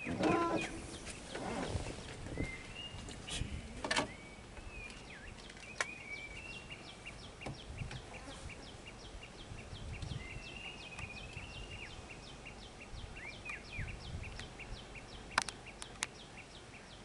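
Wild birds calling over and over in short downward chirps, with a fast, even run of high ticks from about five seconds in. A louder brief sound at the very start and a few sharp clicks stand out.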